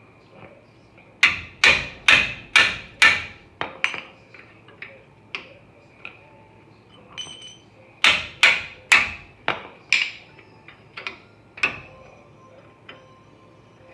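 Hammer striking metal: two runs of about five hard blows, roughly two a second, each followed by a few lighter taps.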